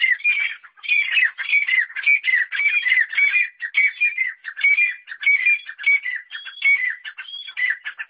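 Francolin (teetar partridge) calls: a fast, unbroken run of short, high, repeated notes, many dipping in pitch.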